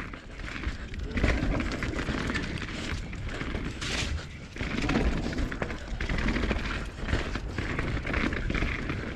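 Mountain bike riding fast down a dirt forest trail: a steady rumble of wind on the microphone, with the bike rattling and its tyres clattering over roots and rocks in quick, uneven knocks.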